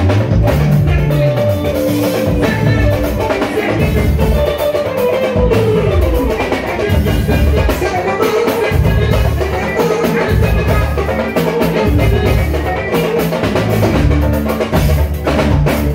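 Live mbalax band playing: a drum kit with a heavy bass-drum beat, an electric guitar and a tama talking drum.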